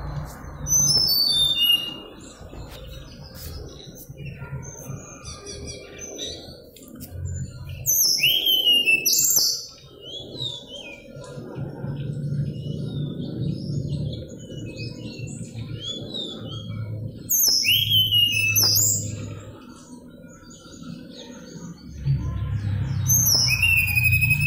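Mangrove blue flycatcher singing continuously: four loud bursts of sweeping, rising and falling whistles spaced several seconds apart, with quieter chirps and twitters between them, over a low background rumble.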